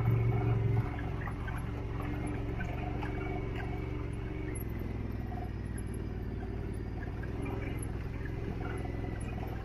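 Engine of the off-road vehicle being ridden, running as a steady low drone at slow riding speed; louder for the first second, then evener, its note shifting a little about halfway through.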